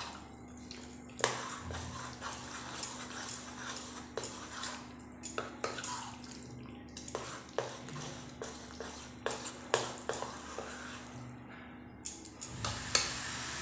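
A metal spoon stirring thick semolina batter with chopped carrots and beans in a stainless steel pan: wet stirring sounds with irregular clinks of the spoon against the pan, over a faint steady hum.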